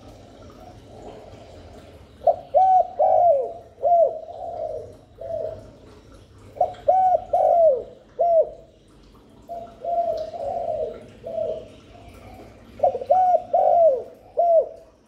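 Spotted dove cooing: four phrases of a few deep coo notes each, the phrases about three to four seconds apart, with the third phrase softer.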